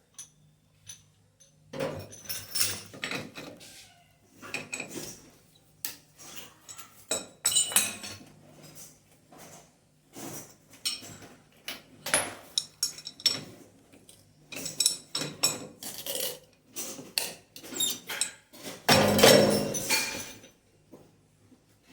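Metal tools and tap fittings clinking and knocking in short, irregular strikes while a kitchen sink mixer tap is being fitted, with a longer, louder burst of knocking near the end.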